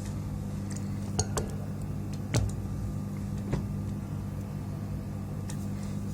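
Steady low electrical hum with a few light clicks and clinks of small hard objects being handled.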